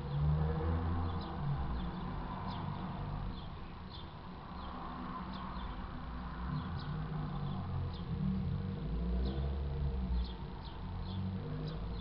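A flock of starlings calling as they bathe in a rooftop puddle: scattered short, high chirps that drop in pitch, several a second at times, over a steady low rumble.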